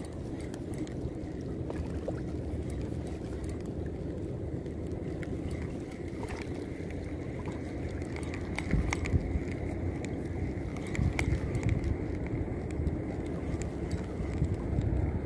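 Steady rumble of wind and water lapping at the rocky shoreline, with scattered clicks and handling knocks from the spinning rod and reel as the lure is worked. A faint steady whine joins about six seconds in, and the knocks grow louder near the end.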